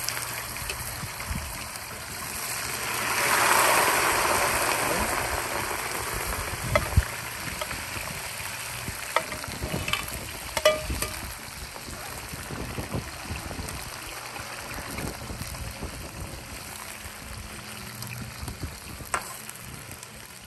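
Parboiled potatoes going into a wok of hot oil, the oil sizzling up loudest about three to four seconds in and then frying steadily. A few sharp clinks of a metal spoon against the pot and wok come through.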